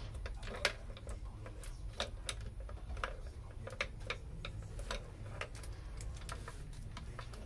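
Irregular light clicks and taps, one or two a second, over a low steady hum.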